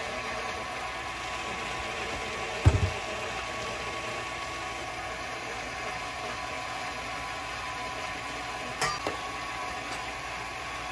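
Electric kitchen mixer running steadily, beating the eggs while sugar goes in, with one dull thump a little over two seconds in and a sharp click late on.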